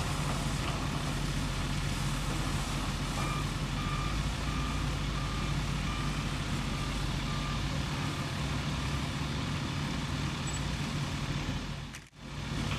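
An engine runs steadily, and a reversing alarm beeps about twice a second for a few seconds, starting about three seconds in.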